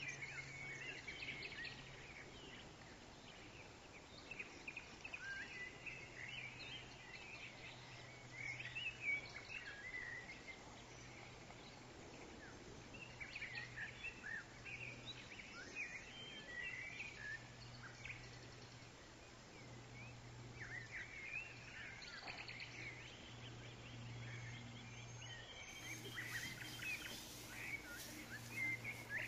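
Small birds chirping in short scattered calls over a faint steady low hum; no mooing is heard. About four seconds before the end the sound changes to a fuller, busier mix of chirps.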